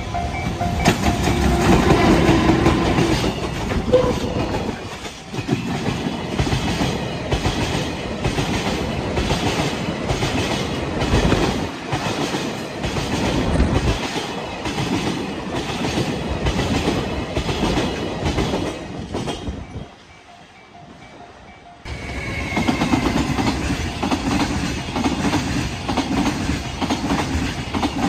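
Freight train wagons running over rail joints, a heavy, rhythmic clatter of wheels striking the joints. The clatter drops away briefly about 20 seconds in, then comes back suddenly about two seconds later.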